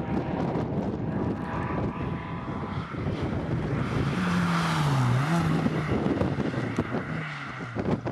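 Rally car engine running hard, its pitch rising, dipping and rising again around the middle, under a steady rush of wind and road noise.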